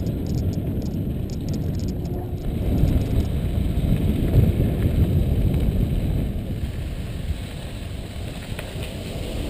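Wind buffeting an action camera's microphone and mountain bike tyres rolling over a dirt trail while riding downhill, a steady low noise that grows louder in the middle and eases off near the end.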